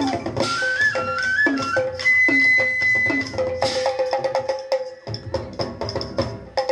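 Live folk percussion ensemble: quick wooden strikes on bamboo or log instruments and clashing brass hand cymbals under a high stepping melody, which holds one long high note about two seconds in. In the second half the wooden strikes settle into a fast even patter.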